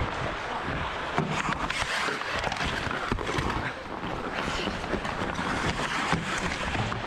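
Ice hockey skates scraping and carving on the ice, with sharp clicks of sticks hitting the puck and the ice scattered through it.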